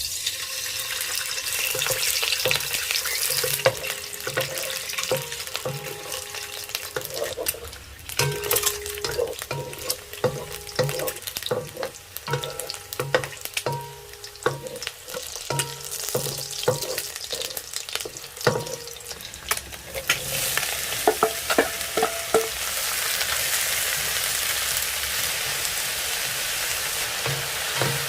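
Food sizzling in a hot frying pan while a spatula stirs it, with many short scrapes and knocks of the utensil against the pan. The sizzle grows louder about twenty seconds in.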